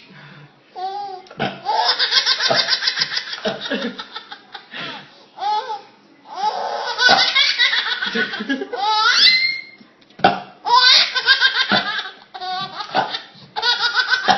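Baby belly-laughing in repeated bursts of giggles, with short pauses between them and a rising squeal about nine seconds in.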